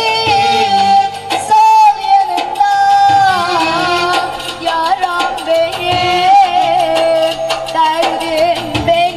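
Music with singing: a single voice carries a long, wavering melody with slides and ornaments over steady instrumental accompaniment.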